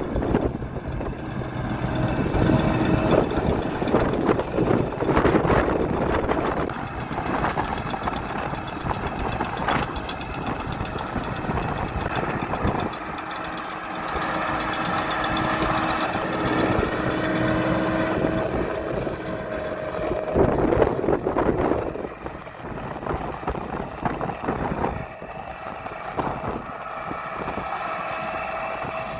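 Combine harvester running steadily in the wheat field, its engine and machinery keeping up a continuous drone with a steady whine that comes and goes.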